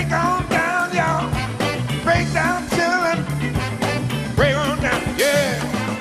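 Live funk band playing an instrumental groove: a steady drum beat of about four hits a second under a repeating bass line, with a wavering lead melody above.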